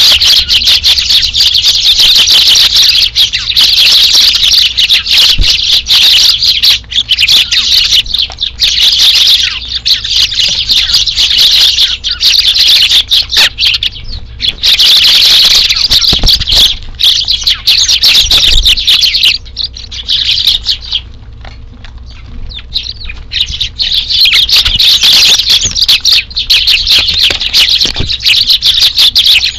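A flock of Eurasian tree sparrows chirping densely and continuously, thinning out for a few seconds about two-thirds of the way through.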